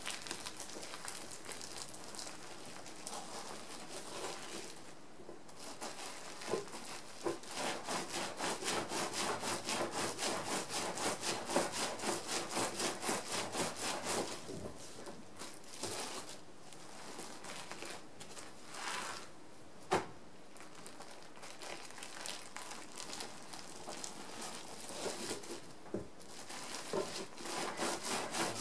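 A rolled bundle of bubble wrap and towel being rolled back and forth under the palms on a board, a rhythmic rubbing swish with bubble-wrap crinkle. This is the rolling stage of wet felting a wool cone. A few sharp clicks come through now and then.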